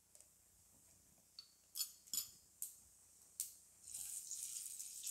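Fennel seeds frying in hot oil in a nonstick pan: a few sharp clicks, then about four seconds in a steady sizzle as a wooden spoon stirs them.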